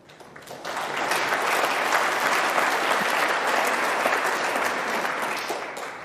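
Snooker audience applauding a successful swerve escape from a snooker. The clapping builds up about a second in, holds steady, and dies away near the end.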